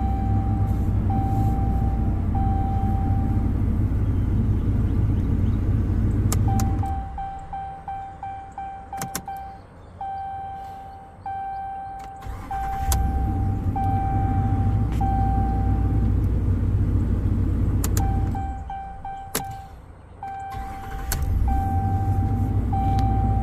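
A 2019 Ram 1500's 5.7 L Hemi V8, fitted with a replacement starter, is started three times and runs steadily for several seconds each time. It shuts off at about 7 s and about 18 s and is restarted at about 13 s and about 21 s. A vehicle chime beeps in a repeating pattern throughout, with a few sharp clicks near the starts and stops.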